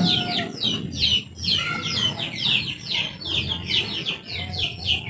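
Birds chirping continuously, a rapid unbroken run of short, high, falling chirps, about four or five a second, over a low background murmur.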